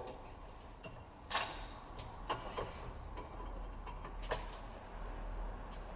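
Scattered sharp metallic clicks and knocks as a bench vise is closed up on a leaf spring eye, a new bush and a flat steel plate, with the parts being set in place before pressing.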